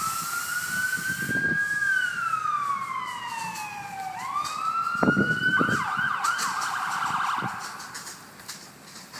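Emergency siren: a slow wail that rises, falls away over a few seconds and rises again, then switches to a fast yelping warble about halfway through before fading out near the end, with a few low knocks under it.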